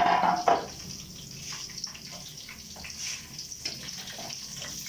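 Meat frying in a wok over a gas burner with garlic and oyster sauce: a steady sizzle, with the spatula scraping and tapping the pan now and then. A short louder sound opens it.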